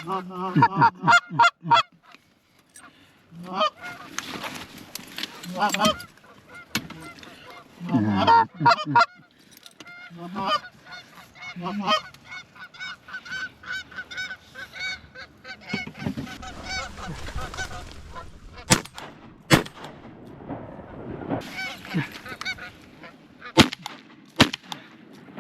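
Canada geese honking and clucking in repeated short calls, with a brief lull early on. A few sharp knocks sound in the second half.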